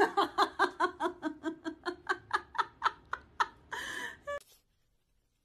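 A person laughing hard and high-pitched, in a rapid run of short 'ha' bursts at about four to five a second. It ends in a breathy gasp and cuts off suddenly about four and a half seconds in.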